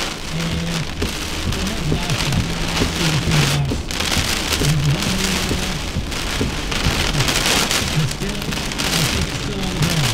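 Heavy storm rain driven by gusty wind in a tornado's outer circulation, its loudness swelling and easing every couple of seconds.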